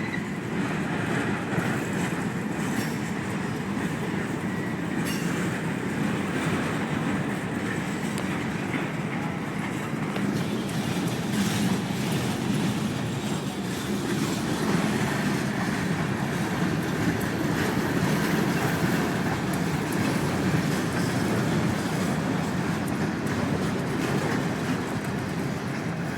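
Freight cars of a long Kansas City Southern manifest train rolling past steadily.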